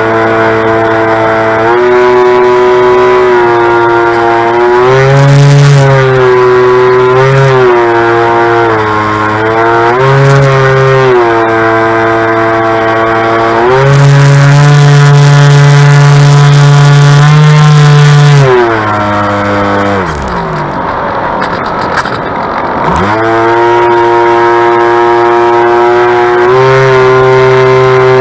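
Bixler 2 RC glider's electric motor and propeller, heard from on board, whining steadily with its pitch rising and falling as the throttle changes. About nineteen seconds in the whine glides down and drops away, leaving rushing air, then comes back up about four seconds later.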